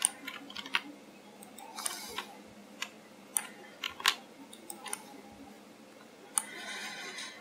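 Irregular clicks of a computer mouse and keyboard, about a dozen spaced unevenly, as mesh edits are made, with a soft rustling hiss near the end.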